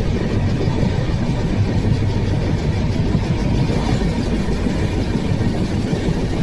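Steady, loud rumble of a moving passenger train heard from on board: wheels running on the rails, with no break or change.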